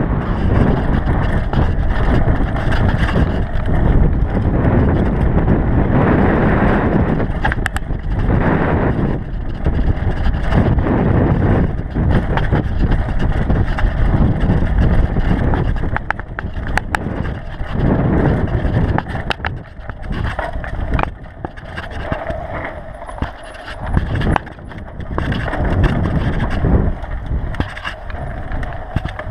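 GT DHi downhill mountain bike ridden fast down gravel and dirt trail, heard from an onboard camera: a steady rush of wind and tyre rumble, loudest in the first half, with sharp clicks and knocks as the bike rattles over bumps.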